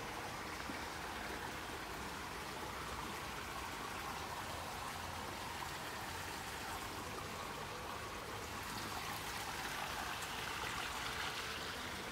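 Steady running and trickling water, getting a little louder near the end.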